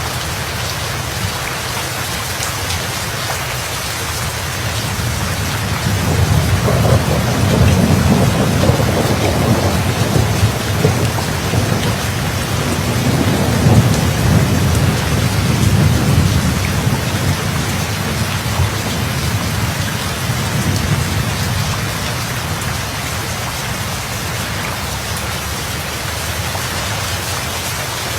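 Steady heavy rain falling, with a long rolling rumble of thunder that builds about six seconds in, swells twice and fades away before the end.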